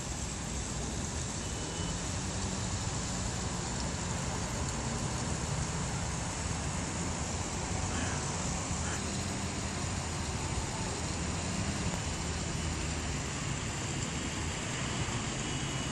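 Steady background hum of city road traffic with a low rumble.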